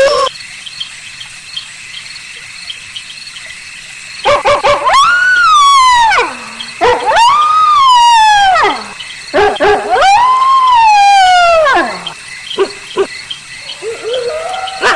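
Wolf howls: after a few quiet seconds, three howls in a row, each rising quickly, then sliding down over a second or two. A few short yelps follow, and another howl begins near the end.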